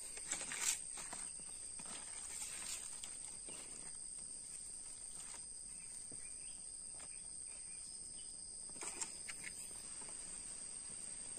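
Dry bamboo sticks and twigs knocking and rattling as they are pushed in and laid over a small fire, in scattered clusters near the start and again about nine seconds in. Behind them runs a steady high insect drone.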